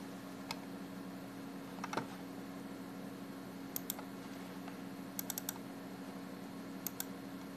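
Computer mouse and keyboard clicks: scattered single clicks, a quick double click, then a fast run of four, over a faint steady low hum.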